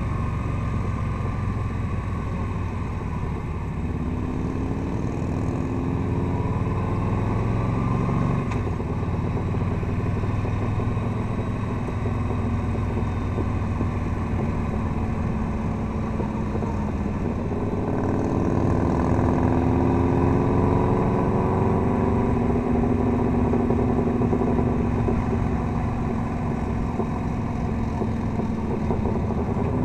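Touring motorcycle's engine heard from the rider's seat while riding, with wind noise; the engine note climbs and drops repeatedly, with a sharp drop about eight seconds in and a long climb from about eighteen seconds in as the bike shifts and accelerates.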